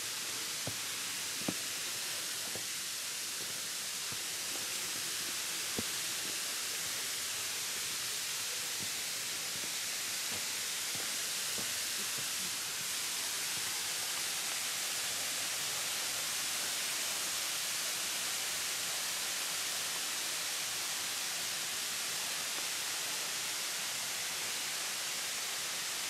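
Steady hiss of Manoa Falls, a tall, thin waterfall, pouring down a rock face and splashing into the pool at its base. A few faint taps come in the first few seconds.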